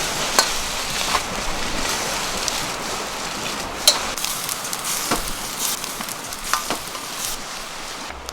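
Fried rice sizzling and being stirred in a Chinese wok over a wood fire, with sharp metallic clinks of the spatula on the wok scattered through it.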